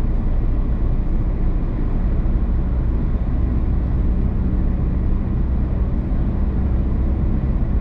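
A car driving along a road: a steady, low rumble of tyres and engine with no changes.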